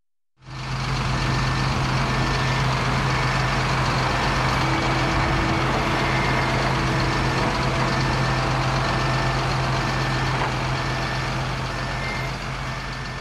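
Backhoe running steadily with its reversing alarm beeping about once a second. It starts abruptly and fades near the end.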